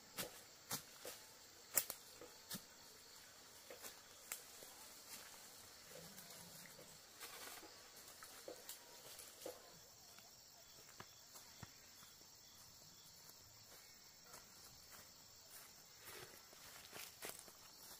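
Faint, near-silent ambience: a steady high drone of insects with scattered light clicks and taps, a few more of them in the first couple of seconds and near the end.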